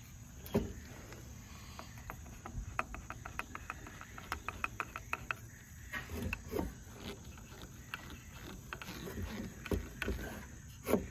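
A hand screwdriver driving a long wood screw into a pine leg of a wooden brooder: a run of quick sharp clicks at a few per second as the handle is turned, with scattered duller knocks of the wood and hands.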